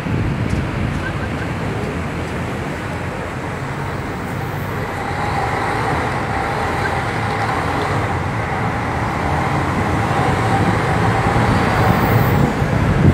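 Road traffic and bus engine noise heard from the open top deck of a moving sightseeing bus: a steady, dense rumble of passing vehicles and engines, growing a little louder toward the end, with a faint steady whine from about five seconds in.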